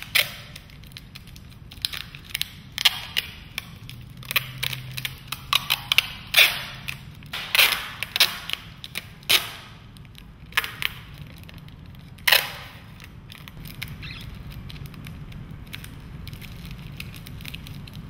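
Clear plastic sheeting crinkling and crackling in irregular sharp snaps as it is handled and wrapped around a wide paintbrush. A few louder crackles come around the middle, and the snaps die away after about thirteen seconds.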